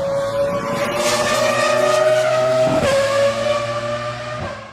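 Ferrari F2004's 3-litre V10 Formula 1 engine at high revs, pitch climbing, with a sharp drop about three seconds in as it shifts up. It sweeps down and fades near the end.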